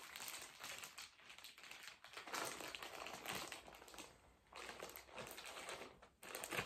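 Clear plastic packaging bag crinkling as it is handled and pulled open. The rustling comes in irregular stretches with short lulls about two, four and six seconds in.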